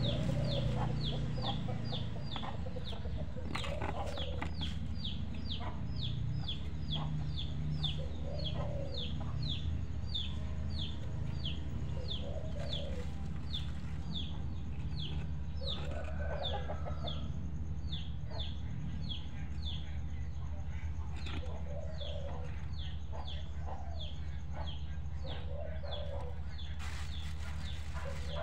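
Chickens clucking now and then, under a small bird's high, falling chirp repeated about twice a second.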